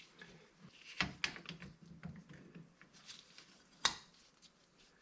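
Faint metallic clicks and light knocks from a brake caliper's pads and pin plate being pushed and worked loose by hand. Two sharper knocks stand out, about a second in and again nearly three seconds later.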